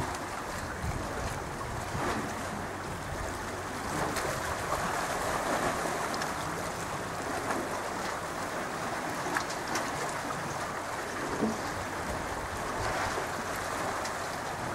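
Choppy sea water splashing and washing in a steady rush, with wind on the microphone and a few small splashes.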